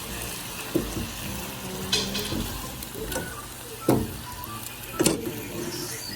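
Rice noodles stir-frying in a hot pan: a steady sizzle, with a cooking utensil knocking against the pan four times.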